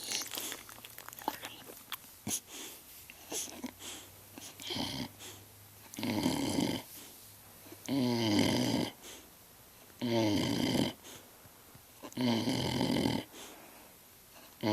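A sleeping dog snoring, about one snore every two seconds, each lasting around a second. The snoring starts about five seconds in, after a few seconds of faint clicks.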